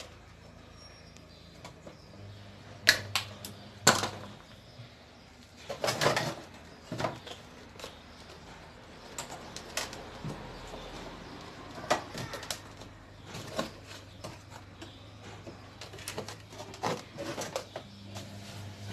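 Scattered clicks, snaps and knocks of hand work on a plastic washing machine: pliers working on wires and the plastic top panel being handled. The two sharpest knocks come about three and four seconds in, with a faint low hum underneath.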